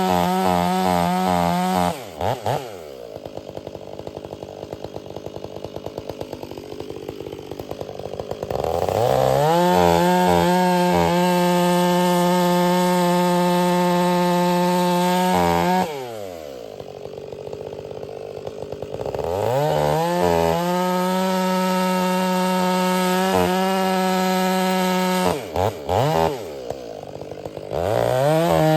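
Stihl MS 500i two-stroke chainsaw with a freshly hand-filed Oregon chain, held at full throttle through cuts in logs. Three times it drops back to idle for a few seconds, about 2 s, 16 s and 25 s in, then revs up again.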